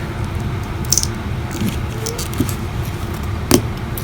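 A few short, sharp clicks and taps of small tools on a phone's parts, over a steady low background rumble.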